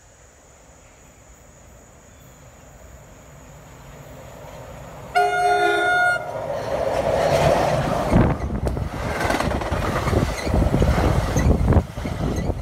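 A commuter train approaching with a rumble that grows, sounding one horn blast of about a second roughly five seconds in, then the loud rush and rumble of the train passing close by.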